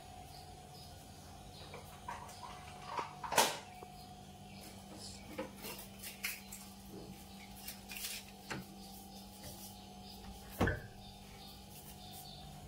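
Scattered clicks and knocks of objects being handled, the loudest about three and a half seconds in and another near the end, over a faint steady hum.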